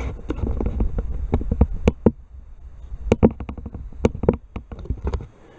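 Handling noise at a workbench: a run of light knocks, taps and rubs over a low rumble. It eases about two seconds in, picks up again, and stops a little after five seconds.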